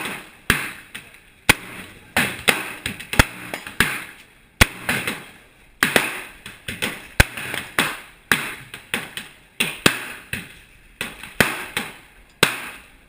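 Gunshots: a string of about twenty single sharp reports at uneven spacing, some close together and some about a second apart, each with a short echoing tail.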